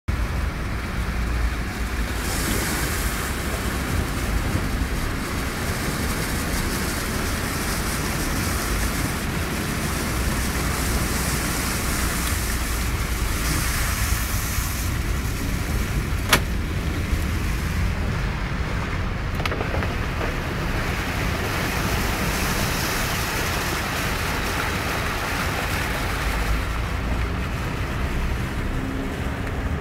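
Flash-flood water rushing steadily with a low rumble, and a single sharp click about sixteen seconds in.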